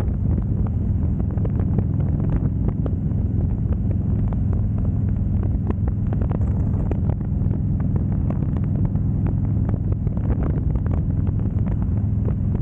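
Harley-Davidson Road Glide's V-twin engine running at a steady cruising pace, with wind buffeting the microphone.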